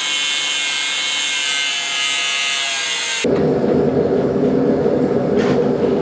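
Angle grinder taking a little off a 3/8-inch square steel bar: a loud high whine with a grinding hiss for about three seconds that stops abruptly. A steady low rumbling noise then runs for the rest.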